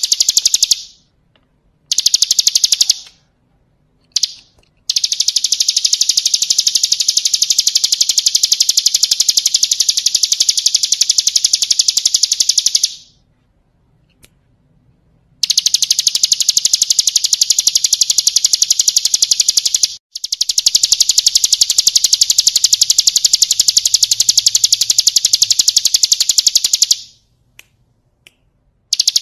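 Ciblek kristal (bar-winged prinia) singing in long, very fast, high-pitched trills. The runs last several seconds each, the longest about eight, with brief pauses between them, near two, four, thirteen to fifteen, and twenty seconds in.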